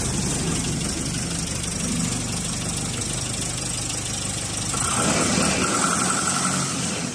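Diesel engine of a trailer-mounted concrete pump running steadily. About five seconds in its sound changes and gets louder, with a higher pulsing note for about two seconds.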